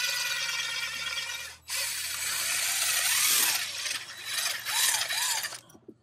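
Cordless impact driver spinning a brass wire brush inside a diesel engine's injector bore, scrubbing out crud. It runs steadily, cuts out for a moment about a second and a half in, then runs again in spurts with the speed rising and falling several times, and stops near the end.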